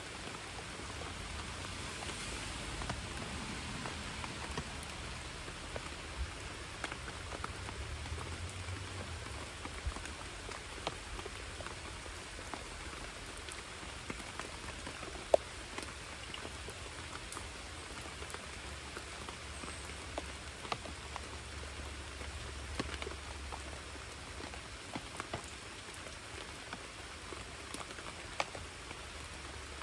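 Steady rain falling on a creek, with many scattered close raindrop taps and one sharper tap about halfway through.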